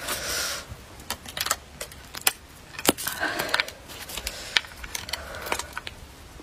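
Icicles clinking and tapping against each other as they are handled: a scattering of sharp, irregular clicks, with brief rustling swishes of handling between them.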